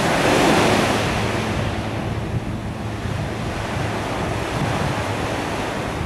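Ocean surf washing up over a sandy beach: a surge of breaking foam about half a second in, then a steady wash of water.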